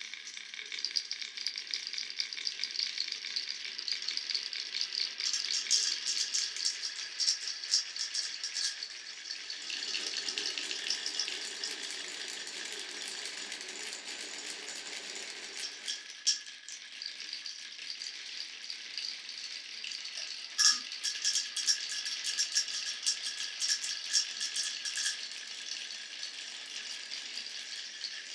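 Glass marbles rolling and clattering along a wooden marble run, a dense stream of small clicks as they knock against the track pieces. In the middle stretch a lower rolling rumble joins in, and about two-thirds through one sharp click stands out as the loudest.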